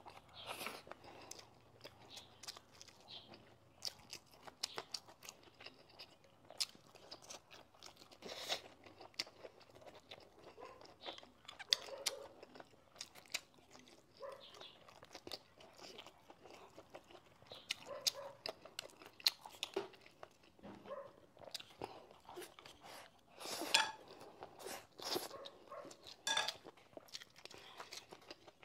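Close-miked eating: a person biting and chewing braised chicken, with irregular crunches and wet mouth clicks.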